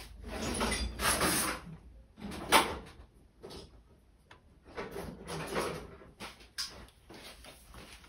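Someone rummaging for pliers in a workshop: a drawer sliding and tools being shifted about, in irregular scrapes and knocks with one sharp clack about two and a half seconds in.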